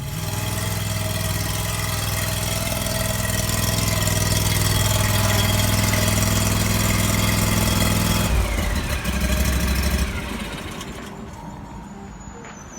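An engine running steadily and growing slightly louder. About eight seconds in its sound changes abruptly and drops in pitch, and about two seconds later it cuts off and fades away.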